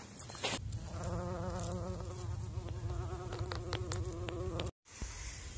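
A flying insect buzzing, its hum wavering in pitch. It starts about a second in and cuts off suddenly near the end.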